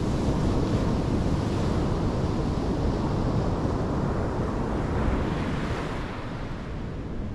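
Surf breaking on a sandy beach, with wind rumbling on the microphone. It eases off slightly about six seconds in.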